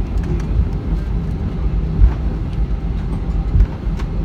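Steady low rumble of an Airbus A320 on the ground before takeoff, heard from inside the passenger cabin, with a few light knocks.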